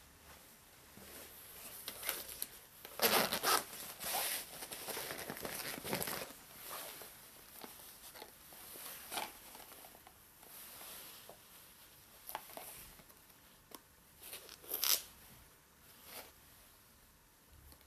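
Rustling of a synthetic jacket and of a small cardboard phone box being handled and turned over in the hands, in irregular bursts: loudest about three to six seconds in and again briefly near fifteen seconds, with softer rustles between.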